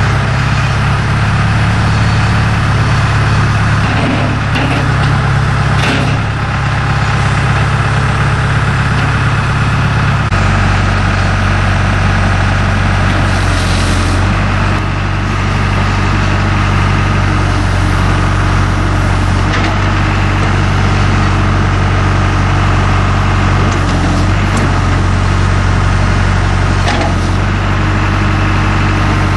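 John Deere 310J backhoe loader's four-cylinder diesel engine running steadily, its low note shifting about ten seconds in, with a few short knocks and a brief hiss along the way.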